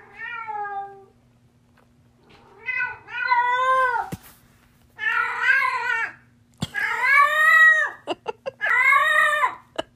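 Small tabby cat yowling: about five long, drawn-out meows a second or so each, rising and then falling in pitch, the first softer and the rest loud.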